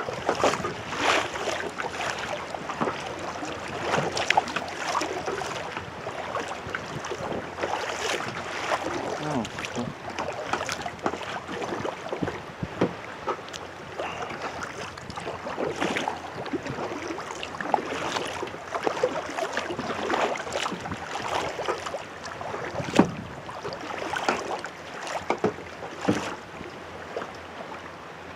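Kayak paddle splashing in choppy water, with irregular slaps and splashes roughly every second over a steady rush of water and wind.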